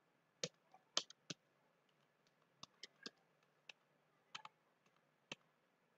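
Faint keystrokes on a computer keyboard: about a dozen short, irregular clicks of typing in bursts, a cluster in the first second and a half and more spread through the rest.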